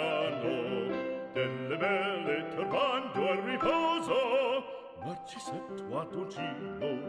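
Background music: operatic singing with a wavering vibrato over classical accompaniment.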